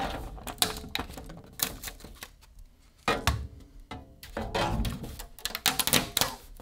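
Flexible spring-steel build sheet slid off a Prusa XL 3D printer's magnetic bed and flexed, with a run of irregular clicks and cracks as the printed mask breaks free of the sheet. The louder clusters of cracks come about three seconds in and again near the end.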